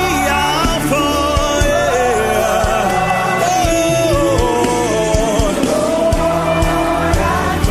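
Live gospel worship music: a lead voice sings a melodic line over a band's sustained keyboard chords, bass and steady drum beat.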